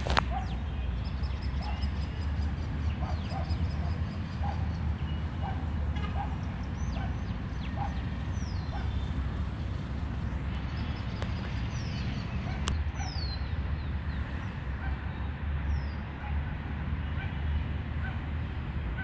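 Birds calling: a run of short, evenly repeated calls, about two a second, over the first half, with high falling chirps scattered throughout, over a steady low rumble.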